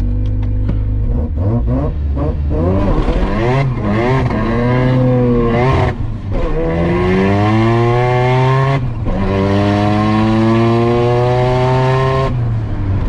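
1994 Mazda RX-7's 13B-REW rotary engine accelerating hard, heard from inside the cabin. Several short rising revs come first, then long climbs in pitch, each broken by a brief dip at a gear change about six and nine seconds in. The throttle closes shortly before the end.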